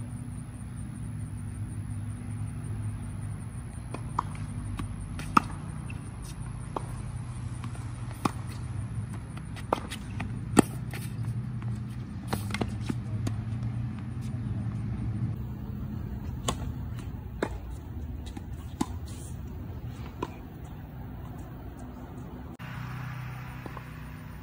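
Tennis balls being struck by racquets and bouncing on a hard court: sharp single pops every second or two, over a steady low hum.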